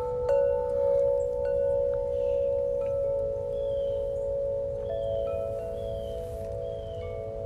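Chimes struck several times, each strike ringing on in long, overlapping tones, with faint short high chirps over them in the second half.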